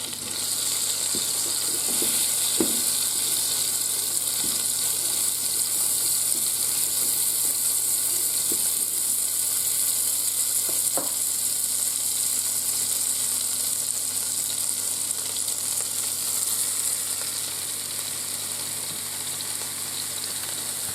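Seasoned chicken breasts frying in butter in the pot of a Cosori multicooker on browning mode: a steady sizzle that swells just after the start, with a few light knocks.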